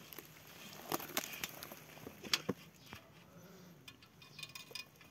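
Footsteps crunching on bark mulch: faint scattered crackles and clicks, a few sharper ones between one and three seconds in.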